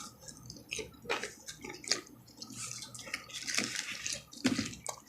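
Close-miked wet chewing and lip smacking: a string of irregular short clicks and smacks.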